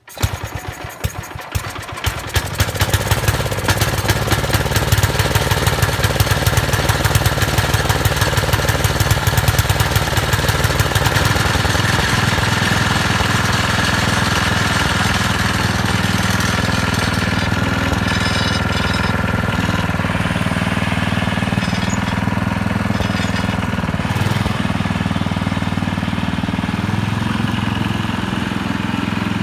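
The 1968 Sears Suburban 12 garden tractor's Tecumseh HH120 single-cylinder engine starts, runs unevenly for a couple of seconds, then keeps running with a fast, even firing beat. About eleven seconds in it settles into a smoother, steadier note. Its fuel tank has just been topped up, which the owner suspected was why it would not run.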